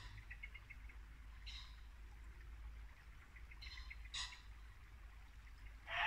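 Muntjac deer barking: a few short, sharp barks about two seconds apart, the loudest near the end. Between them, a bird gives faint quick runs of ticking calls.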